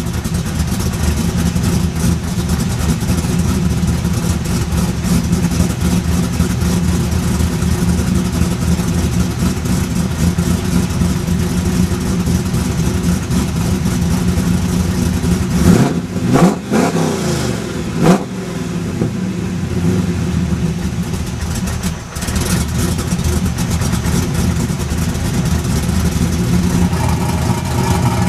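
Chevrolet Camaro SS V8 with a custom-grind Comp Cams camshaft, breathing through Hooker long-tube headers, a Borla catback and QTP electric exhaust cutouts, idling loudly. About two-thirds of the way through it is revved in two quick blips, then drops back to idle.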